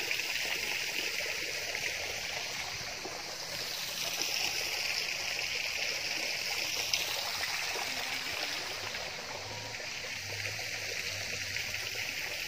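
Water running steadily along a stone-lined channel, a constant trickling rush.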